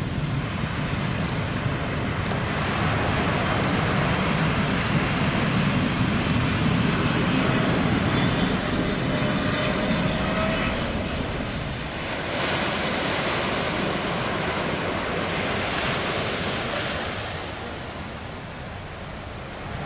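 Jet engine noise from a Saudia Boeing 777-300ER's GE90 engines as the airliner comes over the shore and flares to land. It swells, holds loud, and has a faint whine that rises in pitch near the middle. About two-thirds through it gives way to the fainter engine noise of a second twin-engine airliner on approach, mixed with wind on the microphone.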